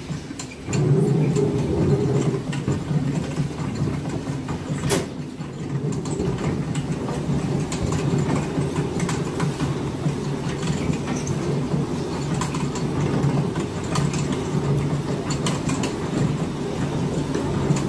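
Electrically driven millstones grinding Red Fife wheat: a steady low mechanical rumble that jumps up in level about a second in, with one sharp click around five seconds.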